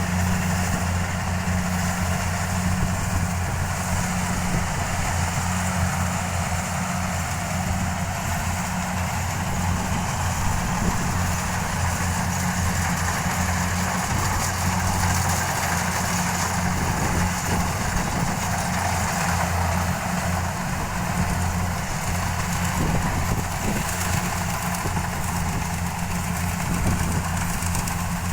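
Kubota combine harvesters running while they cut rice: a steady low engine drone under an even rushing noise of the working machinery, unchanging throughout.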